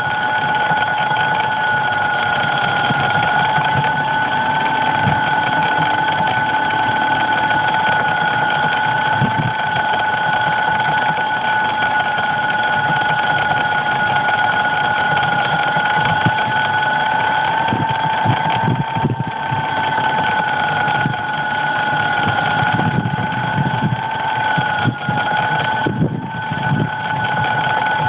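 DJI Phantom quadcopter's electric motors running with a steady two-pitched whine over a hiss, the drone lying in dry grass after its crash; scattered low thumps throughout.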